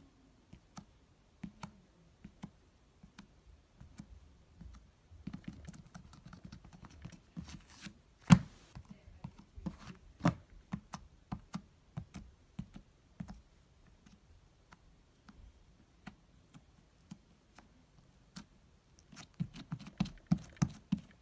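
Thick slime being poked and squished with the fingers, making sticky clicks and small air-bubble pops. A loud pop comes about 8 seconds in and another about 10 seconds in, and a quick run of clicks comes near the end.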